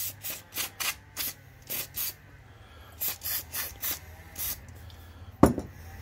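Aerosol carburetor cleaner sprayed in a quick series of short spritzes, about a dozen, onto a small-engine carburetor. About five and a half seconds in comes a single sharp knock.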